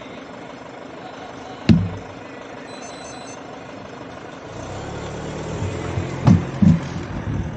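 A motor vehicle's engine running close by, growing louder in the second half, with a sharp knock about two seconds in and two thumps near the end.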